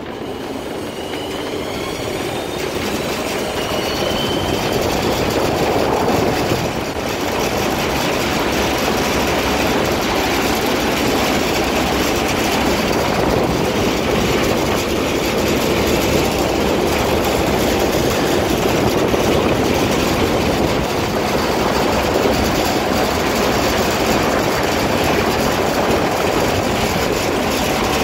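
An old river-crossing cable car running along its steel cables: a steady, loud mechanical rolling noise from the wheels and cable that builds up over the first few seconds, with a faint rising whine near the start.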